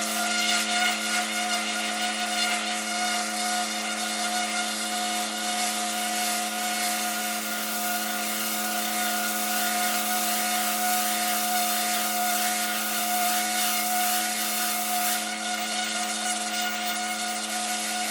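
Pressure washer spraying steadily: a constant machine hum with a high-pressure water jet hissing against brick paving.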